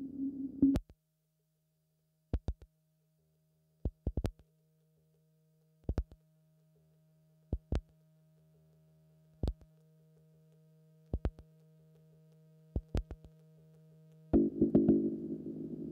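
Electroacoustic music. A dense low drone cuts off under a second in, leaving sharp clicks, single or in small clusters, about every one and a half to two seconds over a faint low hum with thin steady tones. The hum slowly grows louder until the drone comes back abruptly near the end.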